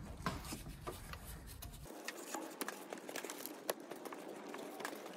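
Light, irregular clicks and taps of a tool being worked under a rubber coolant hose to loosen it from the thermostat housing outlet.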